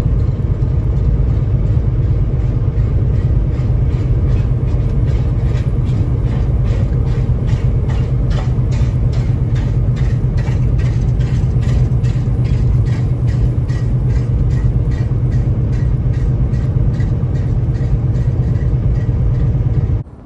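Semi-truck cab at highway speed: a steady heavy low rumble of engine and road noise. A regular ticking, about three ticks a second, runs through the middle stretch; the sound cuts off just before the end.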